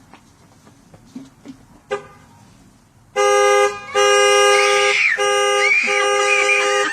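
Car alarm going off: a brief horn chirp about two seconds in, then from about three seconds in the car horn blares loudly in long blasts with short breaks. A child's high voice rises and falls over the horn.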